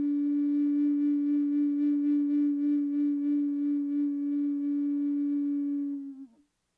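Background music: one long held note on a flute-like wind instrument, wavering slightly, that tails off with a small drop in pitch about six seconds in.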